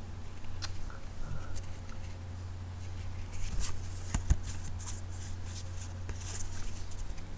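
Trading cards being handled and sorted in the hands: scattered rustles and light clicks, busiest in the second half, over a steady low hum.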